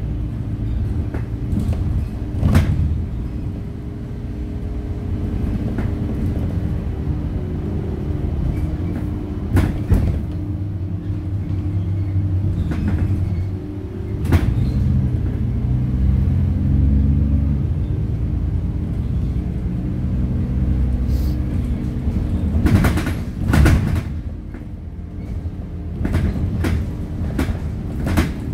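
Heuliez GX 327 city bus's engine running under way, heard from inside the passenger cabin, its pitch rising and falling as the bus speeds up and slows, over road rumble. A few sharp knocks and rattles from the bus body punctuate it.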